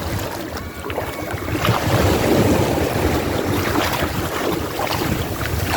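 Sea waves washing and breaking, with wind buffeting the phone's microphone; the surge swells about two seconds in.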